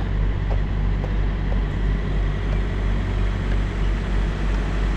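Diesel engine idling steadily with a deep, even hum.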